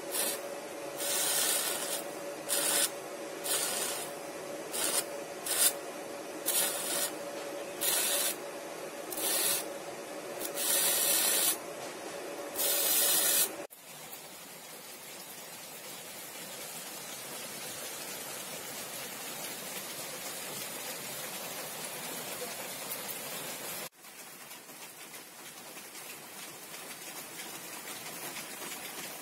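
Steel knife-handle scale being electro-etched, with a welding machine as the power source: about a dozen short sizzling hisses, each under a second to about a second long, as the electrolyte-soaked cotton tip touches the metal, over a steady hum. A little past halfway this cuts off to a quieter, steady hiss.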